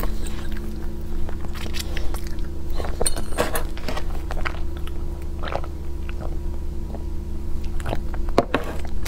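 Close-miked mouth sounds of a person chewing soft crepe cake, with scattered small clicks and ticks, over a steady low hum.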